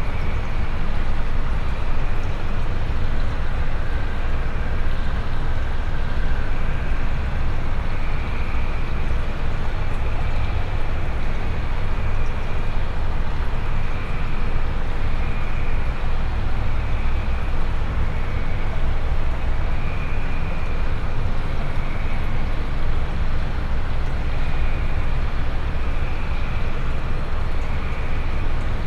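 Droning noise-music soundtrack: a dense, steady low rumble, with a thin high band that swells and fades about every two seconds.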